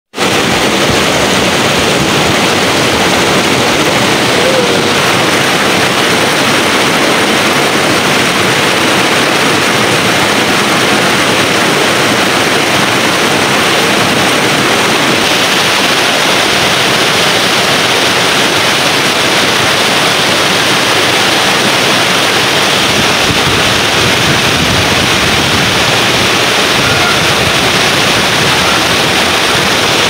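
Steady rushing of a rocky river, with water pouring over a small cascade between boulders.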